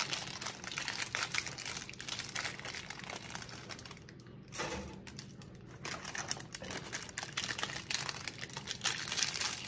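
Irregular small clicks and crinkling from kitchen handling, such as foil and tart packaging being handled on a baking sheet, with a brief lull about four seconds in.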